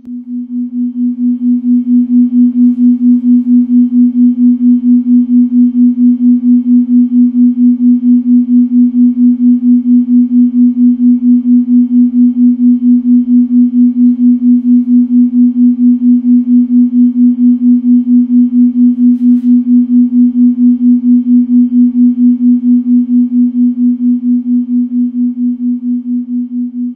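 A steady low electronic tone that pulses evenly about four times a second, like a meditation isochronic tone. It fades in over the first couple of seconds and fades out near the end.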